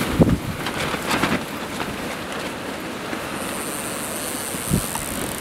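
Strong wind blowing over the microphone: a steady rushing noise with a few short low buffets.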